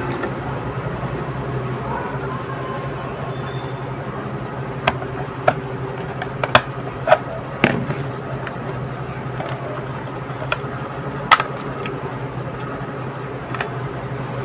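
Plastic case of a switch-mode power supply being pried open along its seam: a string of sharp plastic clicks and snaps from the case's latches, most of them bunched together in the middle and one loud snap a few seconds later, over a steady background hum.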